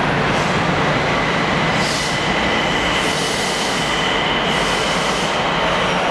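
Nagoya City Subway Meiko Line train running underground: loud, steady running noise with a thin, steady high-pitched whine held over it.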